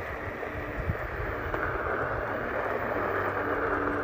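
Wind rushing over the phone microphone, with a faint steady low hum coming in about three seconds in.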